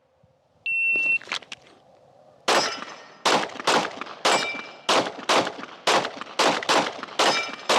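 Shot timer start beep, then about two seconds later a rapid string of 9mm pistol shots from a Glock 45, about two a second, some hits on steel ringing.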